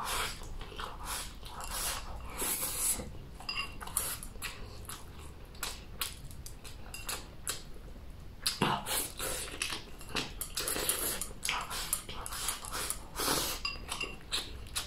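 Close-up eating: chopsticks shovelling chili-topped rice from a ceramic bowl held to the mouth, with repeated short slurps and chewing and the occasional click of chopsticks on the bowl.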